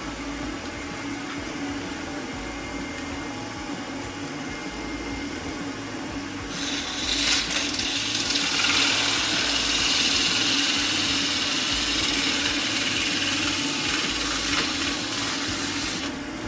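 Wood lathe running with a steady hum. About six seconds in, sandpaper is pressed against the spinning cherry burl bowl and hisses loudly and evenly, stopping shortly before the end.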